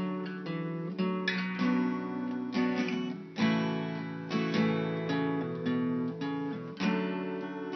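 Acoustic guitar music: strummed and picked chords, each one ringing out before the next.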